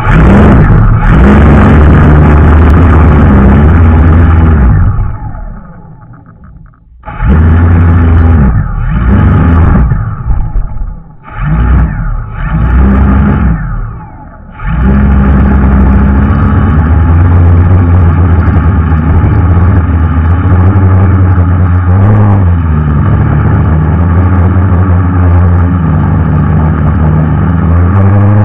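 Electric motors and propellers of a 550-size quadcopter, heard from a camera mounted on its frame: a loud droning hum that winds down about five seconds in, rises and falls in several short throttle bursts, then holds steady for the second half.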